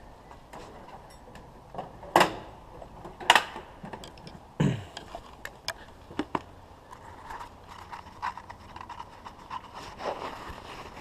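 Handling noise at a garage workbench as objects are picked up and moved. Two sharp knocks in the first few seconds and a dull thud a little later stand out from lighter clicks and rustling.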